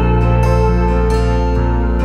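Background music: a slow, calm instrumental with held low notes and a gentle melody above them.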